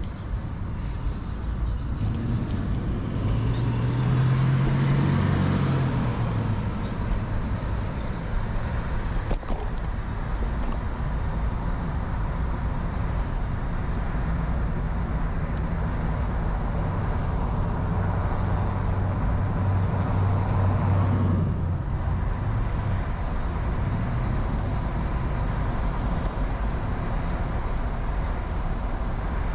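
Road traffic heard from a moving bicycle: motor vehicles passing, with louder passes a few seconds in and again around twenty seconds in, over the steady noise of riding.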